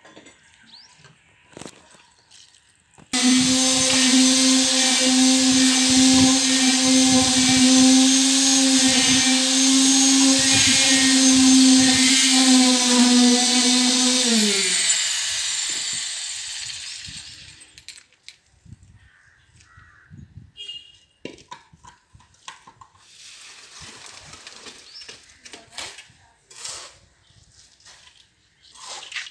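A high-speed electric motor switches on at full speed about three seconds in and runs with a steady high whine and a hiss for about eleven seconds. It then switches off and winds down, its pitch falling as it fades over about three seconds. Faint scattered small sounds come before and after.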